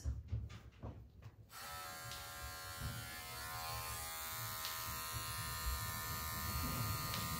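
Electric hair clippers switched on about a second and a half in, then buzzing steadily.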